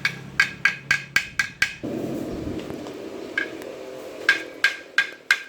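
Quick, even hammer taps on metal, about four a second, each with a short ring; the tapping stops for about two seconds in the middle while a rough rushing noise runs, then resumes.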